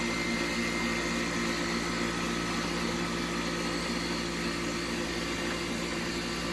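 Air conditioner condensing unit running with a steady hum. Its aging compressor has just started with the help of a newly fitted hard start kit, a capacitor with a relay on the common and HERM terminals.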